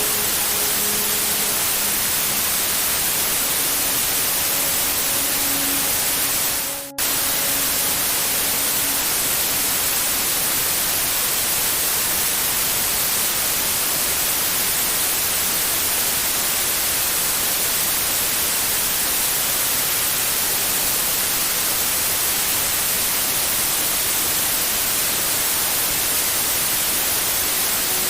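Steady white-noise hiss meant to lull a baby to sleep. About seven seconds in it briefly fades and then cuts straight back in.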